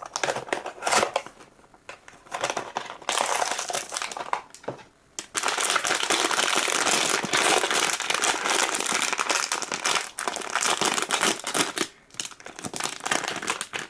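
Blind-box packaging crinkling and rustling as it is handled and opened: short bursts at first, then nearly continuous crinkling from about five seconds in, easing off near the end.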